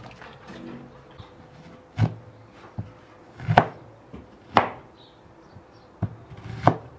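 A cleaver chopping peeled onions on a wooden cutting board: six sharp knocks, irregularly spaced roughly a second apart, the loudest two in the middle.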